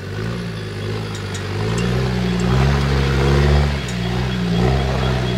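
Land Rover Discovery's engine working under load as the 4x4 crawls over a rock step, the revs rising about two seconds in, dropping briefly near four seconds, then picking up again.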